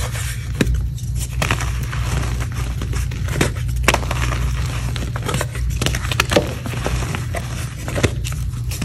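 Fingers pressing into and crumbling a block of reformed gym chalk, with many small, irregular crackles and crunches as the chalk breaks apart.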